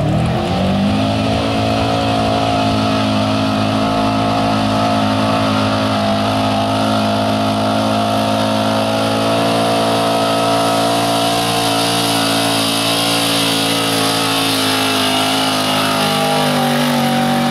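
Full-size pickup truck's engine at wide-open throttle under heavy load as it drags a weight-transfer sled. The revs climb in the first second, then hold high and steady, with tyres spinning in the dirt.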